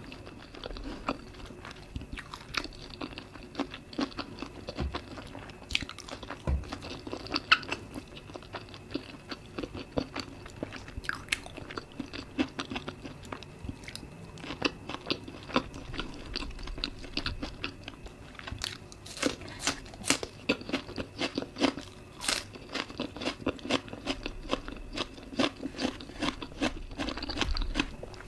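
Close-miked eating: chewing and crunching of steamed vegetables and sticky rice with a spicy dipping sauce. It comes as a steady run of crisp bites and wet mouth clicks, with a few sharper crunches standing out.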